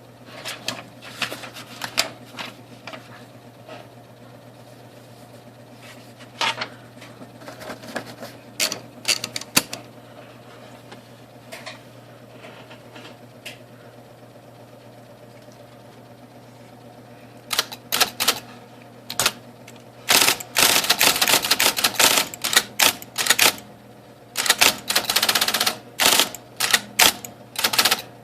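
IBM Selectric electric typewriter being test-typed over the steady hum of its running motor: scattered single keystrokes and carrier actions at first, then from a little past halfway fast runs of typing. This is a test of backspace and correction after the transport pulley was replaced.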